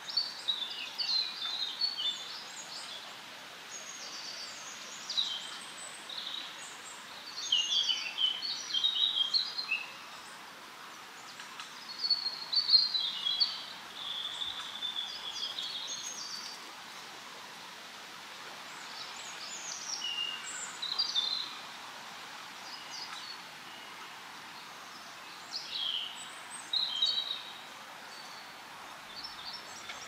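Songbirds singing in spring woodland: short, quick, high phrases repeated every few seconds, the loudest a little before the middle, over a steady soft hiss of wind in the leaves.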